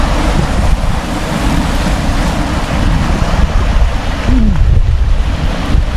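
Wind buffeting the microphone over sea waves washing against shore rocks: a loud, steady rush with a rumbling low end.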